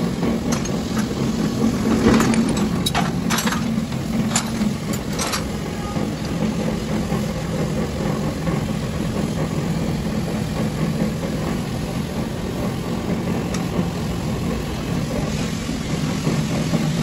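An engine idling steadily, with a few sharp clicks or knocks in the first five seconds.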